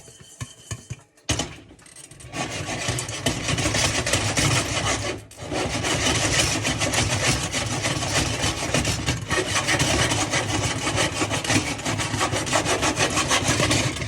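Microwave popcorn cooking in a pan of hot oil on a stovetop: a loud, dense rasping crackle of many rapid pops. It starts about a second in and breaks off briefly about five seconds in.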